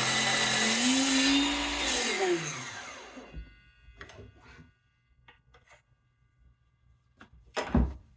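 DeWalt DCS361B 20V cordless 7-1/4 inch sliding miter saw cutting through dense maple: the motor's pitch sags under load, then climbs as the blade clears the wood. After about two seconds the trigger is released and the blade winds down with falling pitch. A few light clicks follow, then a solid knock near the end.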